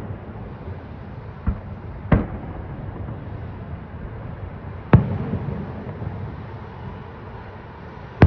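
Fireworks salute shells bursting: three sharp bangs, a faint one about a second and a half in, another around two seconds and the loudest about five seconds in. Each is followed by a low rumbling echo.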